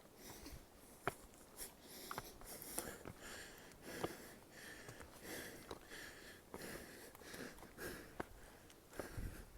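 A hiker's heavy, rapid breathing, about two breaths a second, out of breath from climbing a steep trail. Sharp taps are scattered among the breaths.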